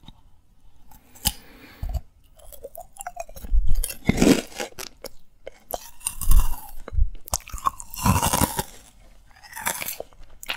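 Close-miked chewing and crunching of candy, in several irregular bursts a second or two apart.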